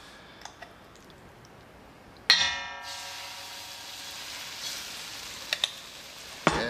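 Saltfish accra batter dropped into hot oil in a wok: about two seconds in, a single ringing clang as the spoon knocks metal, then steady sizzling of the frying fritter with a couple of small clicks.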